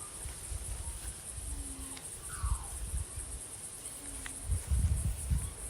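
Insects, crickets by the tag, chirring in a steady high-pitched drone, over an uneven low rumble. A short low note repeats about every two and a half seconds.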